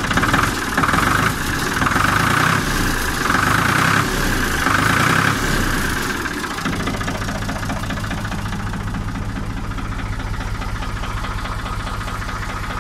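Ford 3000 tractor's three-cylinder diesel engine revved up four times in short bursts about a second apart, then settling to a steady idle about halfway through. Its injection pump is tuned with advanced timing.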